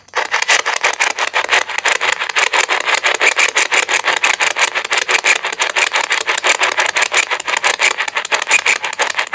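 Spirit box (ghost box) sweeping through radio stations: static chopped into a fast, even stutter of many pulses a second, which the hunters listen to for answers.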